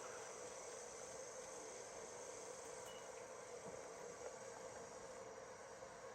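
Faint steady background hum with a light hiss: room tone, unchanging throughout.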